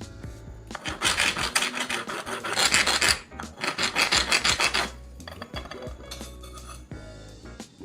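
Knife blade being sharpened with rapid rasping, filing strokes of steel scraping against an abrasive. The strokes come in two bursts, each a second or two long, with a short pause between.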